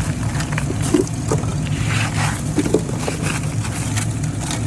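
Vehicle engine idling steadily, with scattered short scrapes and knocks over it, typical of ice and snow being worked at by hand.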